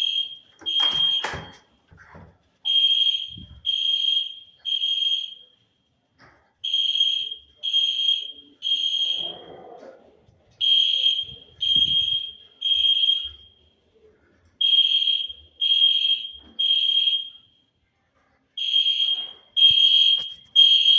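Hotel fire alarm sounding in a three-beep evacuation pattern: three loud, high-pitched electronic beeps, then a pause, over and over. It is going off during a test of the alarm system, not a real fire.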